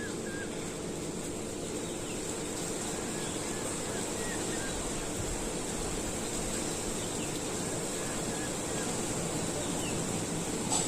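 Steady background hum with a constant high whine, and faint bird chirps in small scattered groups. A single click near the end.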